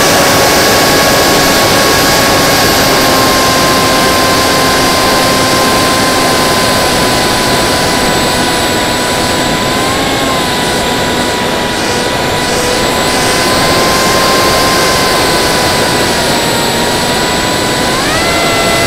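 Electric motor and 5045 bullnose propeller of a Theory W FPV flying wing whining steadily in flight, heard from the onboard camera with wind rushing over the microphone. The pitch sags slowly, blips briefly about halfway through, and climbs sharply near the end as the throttle is opened.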